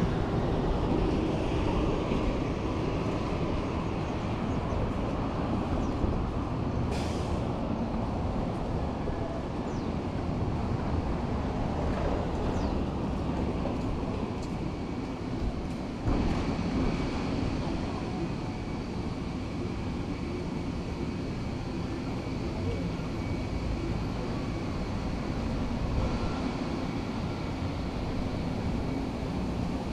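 Steady low rumble of road traffic, with a short hiss about seven seconds in.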